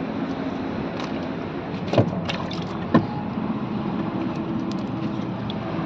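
Steady wind-and-water background with a faint low hum, broken near the middle by two sharp knocks about a second apart as a small fish is freed from a gill net and handled in a small boat.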